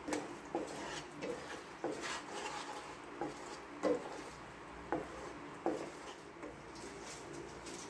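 A wooden spatula stirs and scrapes a thick chili sauce around a stone-coated nonstick wok, making irregular short knocks and scrapes of wood on the pan, about one or two a second.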